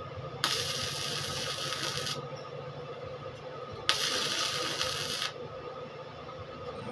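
Stick arc welding: the electrode's arc crackles and hisses in two short runs, the first starting about half a second in and lasting under two seconds, the second about four seconds in and lasting about a second and a half. A steady low hum runs underneath.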